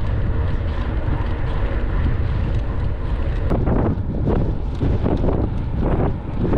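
Wind buffeting the microphone of a mountain bike rider on a dirt trail, with a steady low rumble from the ride. From about halfway through, a run of short noisy puffs comes roughly twice a second.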